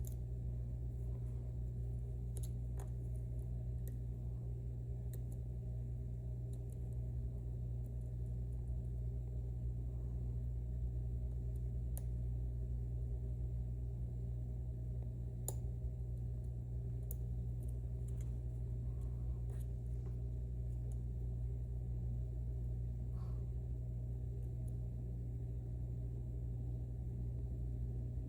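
Dimple lock being picked: sparse, faint metallic clicks of the pick against the pins and sliders at irregular moments, over a steady low hum.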